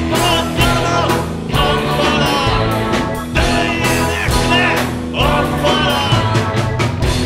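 Live rock band playing with a steady drum beat, electric guitars and keyboard, a man singing lead hard into the microphone and women singing backing vocals.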